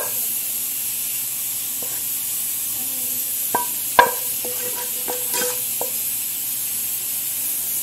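Sautéed onion, pepper and tomato being scraped out of a hot frying pan onto a plate: two sharp metal clinks about three and a half and four seconds in, followed by a couple of seconds of light clinks with a brief metallic ring, over a steady sizzling hiss.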